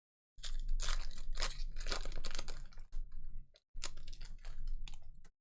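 Crinkling and rustling of trading-card packs and cards being handled, a rapid run of short crackles.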